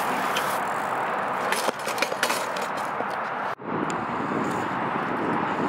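BMX bike rolling on a concrete skatepark surface: a steady hiss of tyre noise with scattered clicks and knocks, broken by a brief gap a little past halfway.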